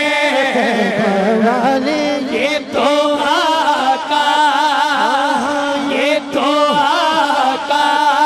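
Male naat reciter singing a long, wordless melismatic passage in wavering held notes, over a steady sustained tone underneath.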